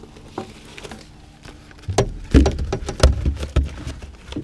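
Knocks and thumps on a boat's carpeted deck as a landed flathead and fishing gear are handled. A quieter stretch comes first, then a run of sharp knocks and dull thumps for about two seconds.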